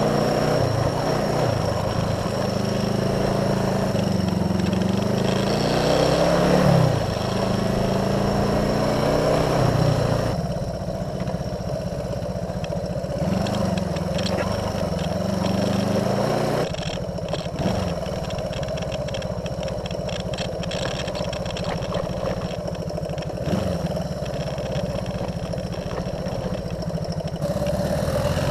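1973 Honda CB360's air-cooled parallel-twin engine running while the bike is ridden over rough grass, its note rising and falling with the throttle several times. A rushing noise sits over it for the first ten seconds or so.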